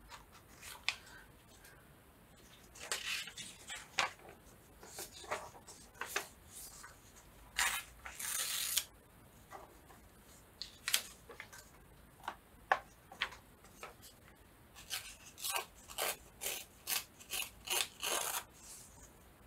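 Paper being worked by hand for collage: irregular crisp snips and rustles, with a longer rustle about eight seconds in and a quick run of about nine snips near the end.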